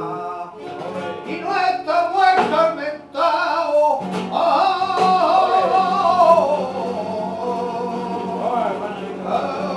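A man singing flamenco with an acoustic guitar. A quick run of strummed guitar chords comes in the first three seconds, then from about four seconds in he holds one long, wavering sung note.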